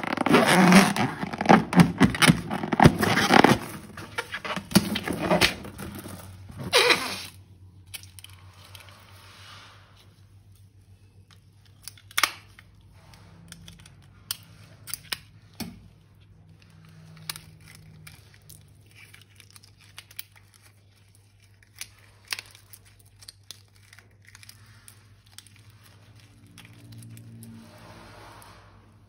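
Crinkling and tearing of balloon rubber and packaging as slime materials are handled, dense and loud for about the first seven seconds, then thinning to sparse clicks and light scrapes.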